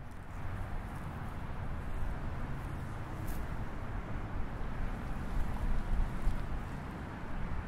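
Gusty wind rushing and buffeting the microphone, a low rumble that swells in stronger gusts about five to six seconds in.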